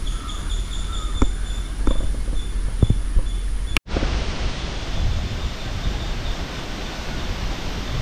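Wind outdoors: a low steady rumble with a few light clicks and a faint high steady tone, then a sudden break about four seconds in, after which an even hiss of wind on the microphone.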